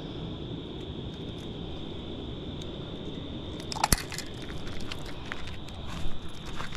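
A steady high insect trill over a low outdoor hiss. About halfway through comes a sharp click, then scattered crackling and clicking handling noise close to the microphone while a landed trout is dealt with in a rubber landing net.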